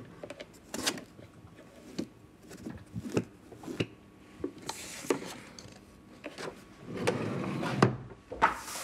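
Paper index cards being riffled by hand in a wooden card-catalogue drawer: irregular soft ticks and paper rustles. Near the end comes a longer rushing rub of wood, a drawer sliding.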